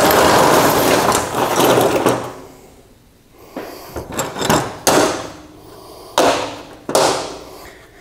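Metal hand tools (screwdrivers, pliers, wrenches) clattering on a diamond-plate metal tabletop: a couple of seconds of continuous jangling as they are spread out, then a handful of separate clanks as tools are set down one at a time.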